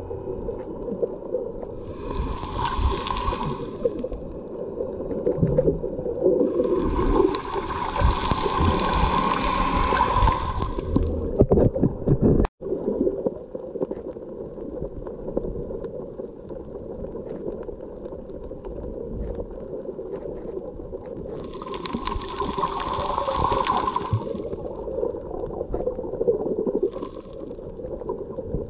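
Underwater water noise picked up by a submerged camera: a steady, muffled low rush of water, with three longer, higher rushing bursts about two, seven and twenty-one seconds in, and a brief dropout near the middle.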